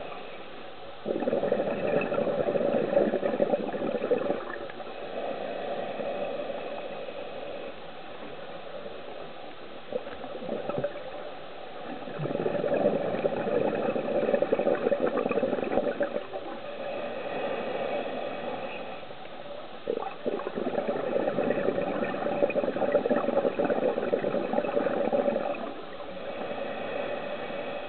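Scuba regulator exhaust bubbling in long gurgling bursts of a few seconds each, three times, with a softer steady bubbling hiss between them: a diver's exhaled breath, heard through an underwater camera housing.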